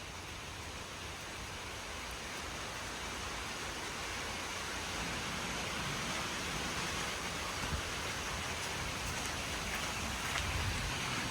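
Wind-driven rain falling steadily, with wind rumbling on the microphone. It grows slowly louder.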